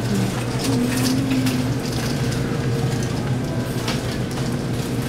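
Grocery store background noise: a steady low hum with scattered clicks and rattles.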